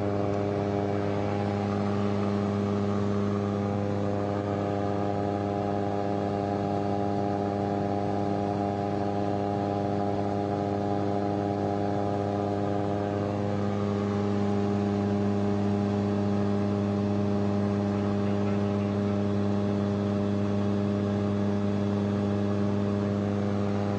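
Shadow microlight's two-stroke engine and pusher propeller running steadily at one even pitch in flight.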